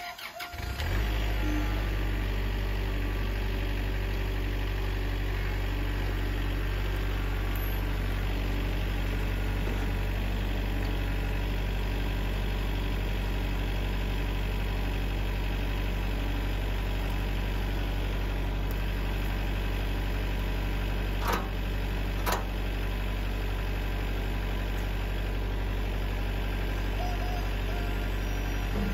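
Kubota L4701 tractor's diesel engine starting up about a second in, then idling steadily. Two sharp knocks, about a second apart, about three-quarters of the way through.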